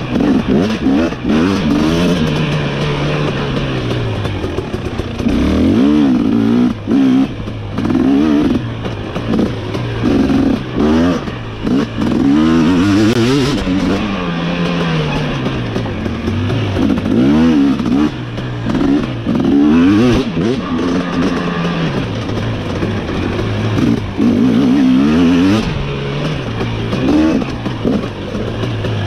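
KTM 250 SX two-stroke motocross bike being ridden hard, its engine revving up and dropping back again and again, the pitch climbing and falling every second or two as the throttle is worked.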